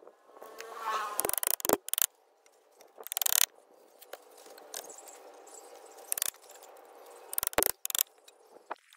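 Sharp knocks and clatter of wood on wood, scattered irregularly, with hammer strikes on a pallet-wood frame near the end.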